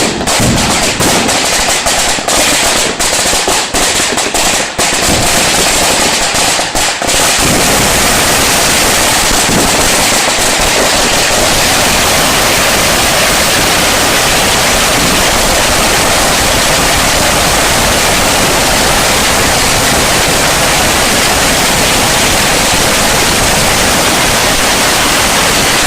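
Fireworks display going off in a dense barrage: rapid separate bangs for the first several seconds, then merging into an unbroken wall of crackling bangs that cuts off at the very end.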